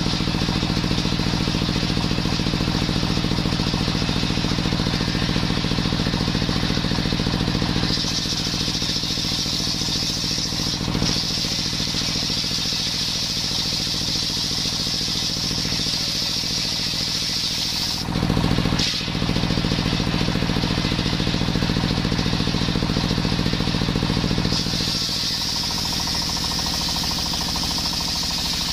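Belt-driven table circular saw powered by a stationary engine running steadily while its blade rips a coconut-wood beam lengthwise. A high hiss of the blade cutting comes and goes, and there is a brief louder thump about two-thirds of the way in.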